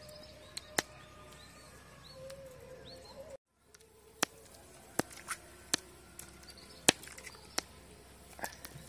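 Scattered sharp pops and crackles from a hot black iron pan over a wood cooking fire, irregular and spaced about a second apart, the loudest near the end. Birds chirp in the first few seconds.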